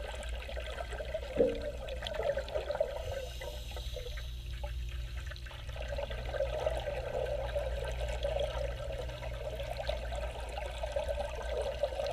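Underwater sound of scuba regulator exhaust bubbles gurgling, thinning out for a few seconds and then running on, over a steady low hum. There is one sharp click about a second and a half in.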